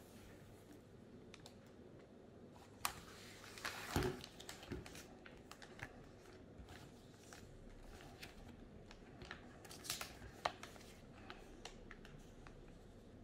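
Faint rustling and crinkling of LEGO parts bags and paper instruction booklets being handled, with scattered soft clicks and taps. The rustling is loudest about four seconds in and again about ten seconds in.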